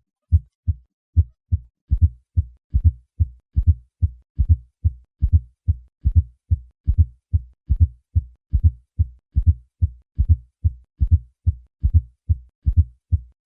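Low-pitched heart sounds heard through a stethoscope. The first couple of beats are normal pairs of first and second sounds. From about two seconds in, a fourth heart sound comes just before each first sound, giving a triple atrial gallop rhythm at roughly 70 beats a minute. This gallop is the sign of a stiff, non-compliant left ventricle.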